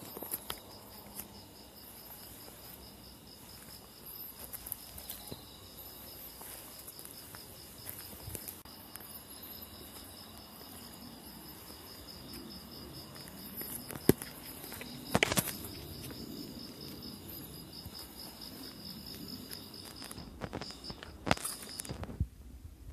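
Crickets chirping in a steady, rapidly pulsing high trill, over low rustling, with a couple of sharp knocks a little past halfway.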